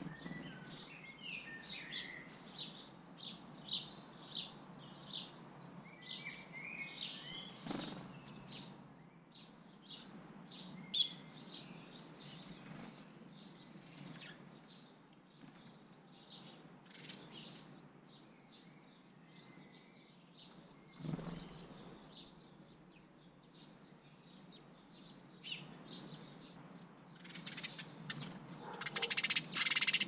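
House sparrows chirping, a long run of short repeated chirps with a couple of brief twittering phrases and a louder, denser burst of calls near the end. Two soft low thumps are heard, about eight and twenty-one seconds in.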